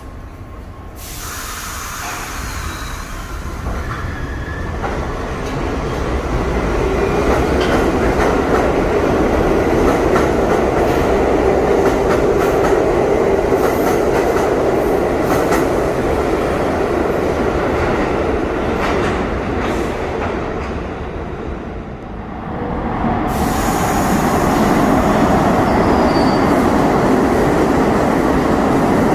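A New York City subway train of R62A cars pulling out of the station, its running noise building as it picks up speed and moves off. After about twenty seconds a second train runs through on the express track, loud to the end.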